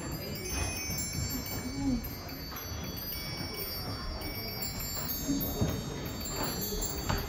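Ornate antique bracket clock playing a chiming tune of high bell notes at twelve o'clock, the musical party trick it performs only once every three hours.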